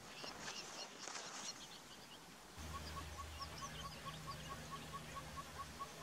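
Red-fronted barbet singing: a long, even series of short notes, about four or five a second, starting a little past halfway. Before that, scattered high chirps of other small birds.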